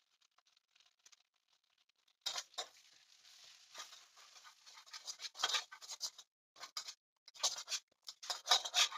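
A large metal spatula scraping and stirring around a wok as ground spices fry in butter and oil, with a light sizzle. It starts about two seconds in, as a run of irregular scrapes.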